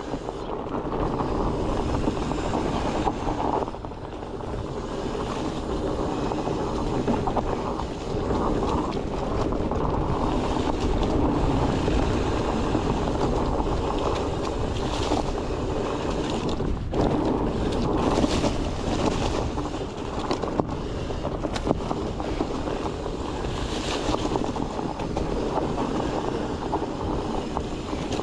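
Mountain bike tyres rolling over a dirt trail strewn with dry leaves, with wind rushing on the microphone and short crackles now and then.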